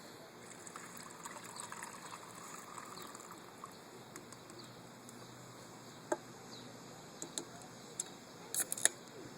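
Quiet outdoor background with a few faint, short bird chirps and scattered sharp clicks and knocks, the loudest cluster near the end.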